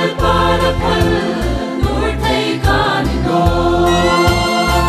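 Mixed choir of men and women singing a Hmar gospel song in full voice over instrumental backing with a pulsing bass.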